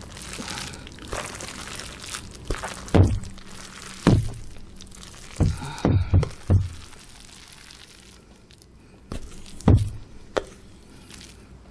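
Heavy clumps of cooked, sauce-coated Samyang Buldak cream carbonara instant noodles sliding out of a plastic container and landing on a tabletop: a string of dull thuds, most of them bunched together in the middle and one more near the end.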